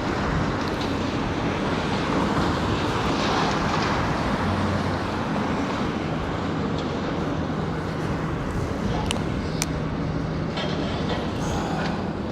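Steady diesel drone of demolition machinery working at the building, mixed with wind noise on the microphone. A few sharp knocks come about nine to ten seconds in and again near the end.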